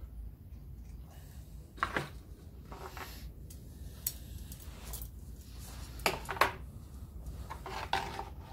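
Metal brake pipe and hand tools handled on a workbench while the pipe is bent to shape: scattered light metallic clicks and clinks, the sharpest about 2, 4 and 6 seconds in, over a low steady hum.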